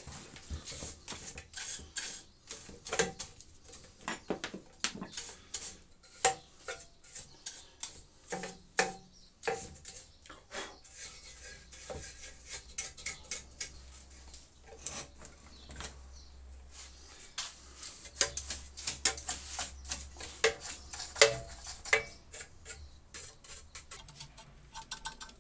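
Small hand brush sweeping dust off a bench grinder: irregular scratchy brushing strokes with sharp taps and knocks as the brush hits the grinder's housing and guards.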